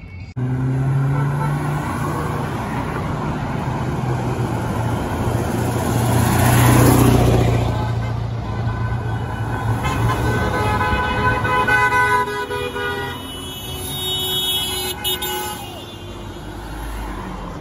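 Cars and trucks passing on a multi-lane road, one swelling past about halfway. Then a car horn is held for several seconds, and a second horn sounds shortly after.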